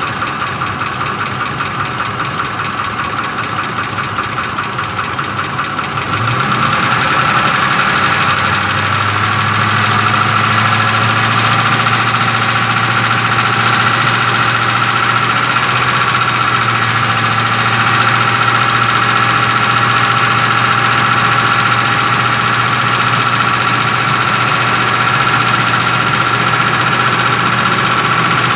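Ford 5.4 Triton 3V V8 engine running with a knock. It grows louder about six seconds in, then holds steady.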